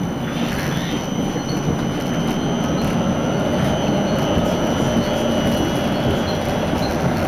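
ULF B low-floor tram running along the street, heard from inside the passenger car: a steady running noise with faint high steady tones above it, growing gradually louder.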